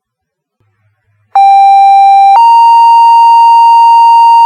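Two-tone sequential pager alert tones on a fire dispatch radio channel: a lower steady tone held about a second, then a slightly higher tone held for about three seconds. They are the alert that sets off the volunteer firefighters' pagers ahead of a page.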